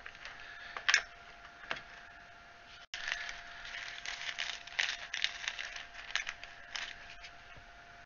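Small clicks, taps and rattles of a hot glue gun and tiny plaster skulls being handled and set down on a plastic cutting mat. The clicks are scattered at first, then come thick and fast for the second half, over a faint steady whine.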